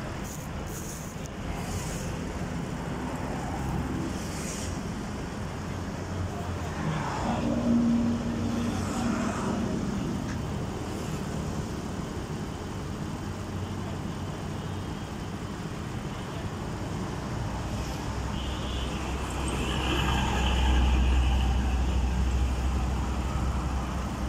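Sany SY215C crawler excavator's diesel engine running as the machine travels on its tracks. The engine rumble grows louder about twenty seconds in.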